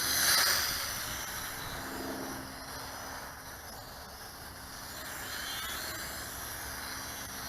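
Small quadcopter's propellers and motors buzzing steadily in flight, swelling louder for a moment about half a second in.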